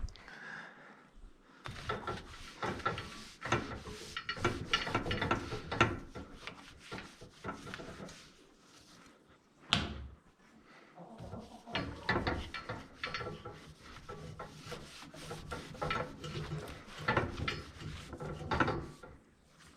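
Irregular rubbing and scraping strokes with occasional knocks, as a rag or brush scrubs the outside of a dairy barn's milk and vacuum pipelines, with one sharper knock about ten seconds in.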